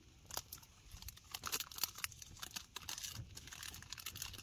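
Chocolate-bar wrapper crinkling as it is handled and opened: a run of small irregular crackles that grows busier from about a second in.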